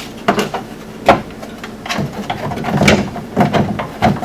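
Irregular knocks and clicks of UTV parts being handled and fitted during reassembly, with the sharpest knock about a second in and a busier run of clatter around the middle.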